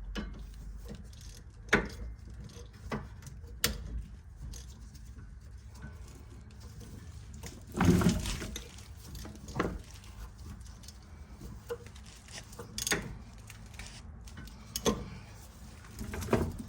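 Hand tools clinking and knocking on metal at irregular intervals while a brake caliper is fitted, with a heavier clunk about halfway through, over a steady low hum.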